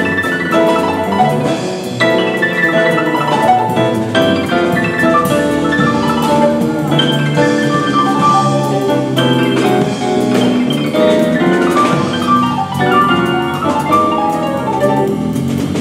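Jazz piano played with busy, fast runs of notes and chords.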